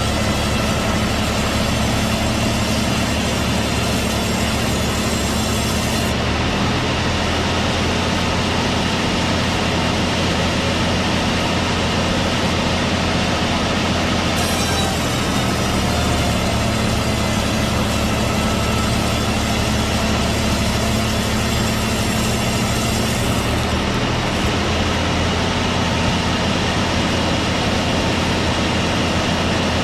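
Sawmill saw running steadily while cutting a hollow teak log, a loud machine drone with a whine of high tones that changes abruptly three times.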